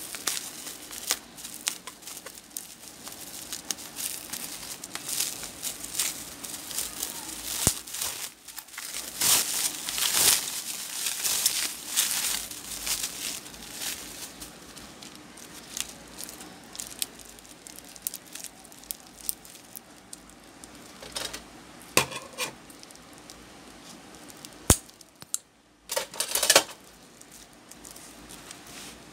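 Bubble wrap and plastic packaging crinkling and crackling in the hands as a replacement phone screen is unwrapped. It is busiest and loudest in the first half, then thins out to a few sharp crackles near the end.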